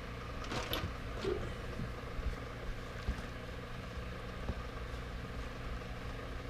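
A steady low mechanical hum, with a few faint soft ticks in the first second or so.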